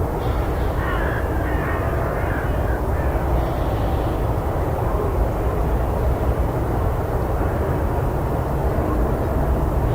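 Forest ambience: a steady low rumble with bird calls over it, most of them in the first few seconds.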